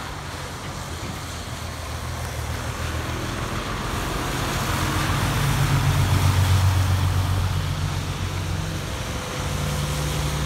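Kenworth T800 semi truck passing on a wet road: its diesel engine drone and the hiss of tyres on wet pavement build to a peak about two-thirds of the way through, then ease off slightly.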